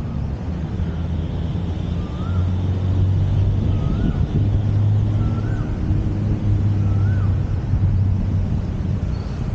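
Steady low rumble of city traffic, with a bird repeating a short whistled call about five times, each note rising then dropping, roughly every one and a half seconds.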